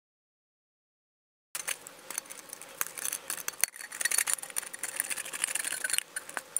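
A P-38 can opener punching and levering its way around the rim of a steel C-ration B-1 unit can. It gives a rapid, uneven run of small metal clicks and crunches that starts about a second and a half in.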